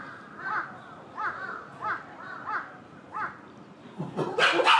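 A bird calling over and over, short arched calls about three every two seconds. Near the end a louder, noisier sound cuts in over them.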